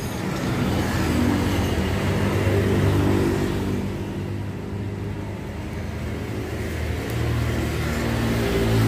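A motor vehicle's engine running, with a low, steady hum that swells twice: about a second in and again near the end.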